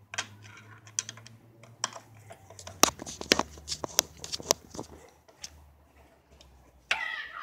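Irregular sharp clicks and taps of hands working at small metal parts on a pocket bike's engine, some louder than others, with a faint low hum underneath.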